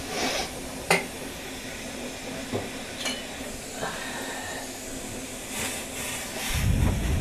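Gas stove burner hissing steadily under a steel saucepan of chai heating up, with a few sharp clicks, the clearest about a second in. A low rumble rises near the end.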